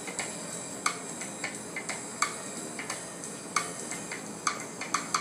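Paintbrush dabbing and stroking on a stretched canvas: irregular light taps, about two a second.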